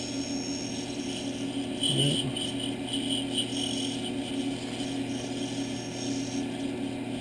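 Sandpaper rubbing against a small wooden workpiece spinning on a mini wood lathe: a rasping hiss that is strongest from about two to four seconds in, over the lathe motor's steady hum.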